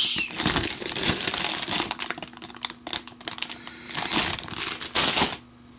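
Clear plastic bags crinkling as bagged model-kit runners are handled and shuffled, in an irregular crackle that stops shortly before the end.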